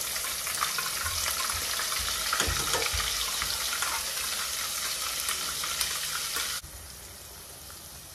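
Wet onion-tomato paste sizzling and crackling as it is poured into hot oil in a kadai. The sizzle cuts off suddenly about six and a half seconds in, leaving only a faint hiss.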